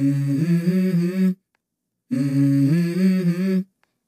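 A deep male voice humming a short two-note phrase, a low held note stepping up to a higher one. It comes twice, each about a second and a half, with dead silence between: a repeated vocal track laid over the video.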